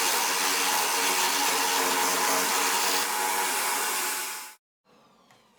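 Electric drill turning a hole saw and cutting into wood, a loud, steady running noise that cuts off abruptly about four and a half seconds in.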